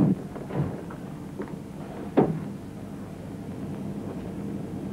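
A door shutting with a single thud about two seconds in, after a lighter knock, over a steady low hum.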